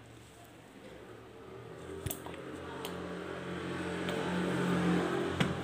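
Plastic squeeze bottle of sauce being squeezed over shredded vegetables in a glass bowl. It makes a low squelching sound that grows louder through the second half, with a few light clicks.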